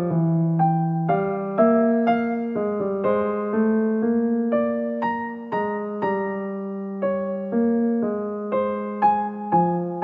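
Solo piano music: single melody notes over a lower accompaniment, each note struck and left to die away, about two notes a second.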